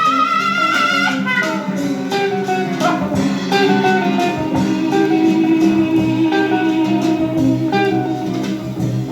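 Music: a guitar-led band recording, with a long wavering held note that ends about a second and a half in, followed by busy plucked guitar notes over a steady bass.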